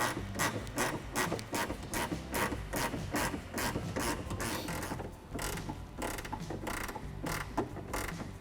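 10mm ratchet wrench clicking as it is swung back and forth to tighten a bolt, at about two to three clicks a second. There is a brief pause about five seconds in, then the clicking resumes.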